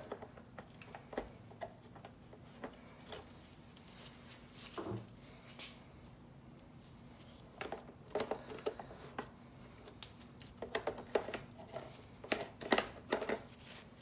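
Plastic clicks, taps and knocks as gloved hands work the hair-clogged brush roll and its cover out of a Shark Ion RV700 robot vacuum's underside, in scattered groups that bunch up past the middle and toward the end. A faint steady hum runs underneath.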